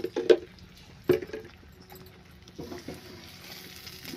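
Steel plate and utensils clinking and knocking sharply a few times in the first second or so while the plate is brushed with ghee, then a wooden spatula stirring a thick peanut and sugar mixture in an aluminium pan, with a faint sizzle rising near the end.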